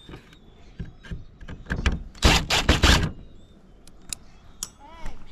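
Scattered clicks and knocks of small metal parts and tools being handled while a device is taken apart for scrap, with a loud rattling clatter lasting under a second about two seconds in.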